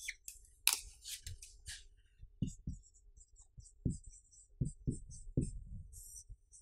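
Marker pen writing on a whiteboard: squeaky, scratchy strokes, densest in the first two seconds and shorter after. There are dull knocks from the pen against the board in the middle.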